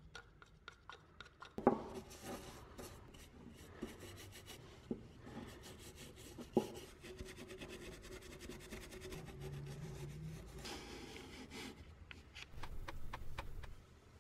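Scraping and rubbing of small hand work: a wooden stick stirring oil finish in a plastic cup and a brush working the oil onto a turned wooden container, with two sharp knocks.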